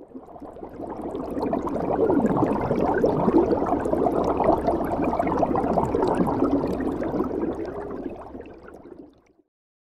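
Underwater bubbling sound effect that swells in over about two seconds, holds, and fades away near the end.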